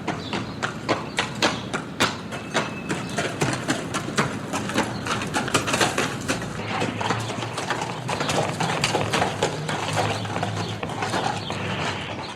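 Hooves of two horses walking together, a steady, overlapping clip-clop of many sharp knocks.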